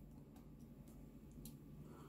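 Near silence with a few faint, irregular clicks of tweezers against a Seiko 6117 watch movement as the cannon pinion is taken off.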